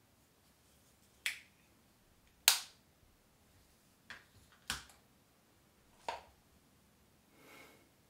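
Sharp clicks and taps of makeup tools and containers being picked up, set down and handled on a hard counter, five in all, the loudest about two and a half seconds in, then a soft rustle near the end.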